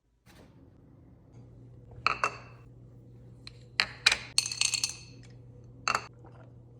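Half a dozen light clinks of small hard objects, glass or metal, being handled and set down, with a brief jingling flurry in the middle. A low steady hum starts about a second and a half in.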